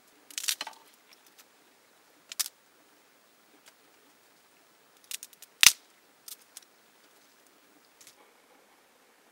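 Dry twigs and brush crackling and snapping as they are handled and broken by hand. There are about half a dozen separate bursts, and the loudest is a single crisp snap a little past halfway.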